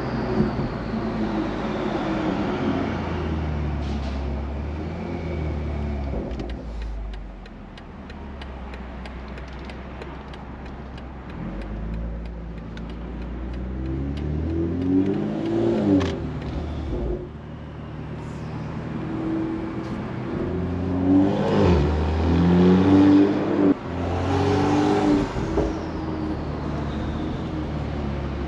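BMW turbocharged straight-six engine and exhaust accelerating hard through the gears: the pitch climbs and drops at each upshift, several times in the second half.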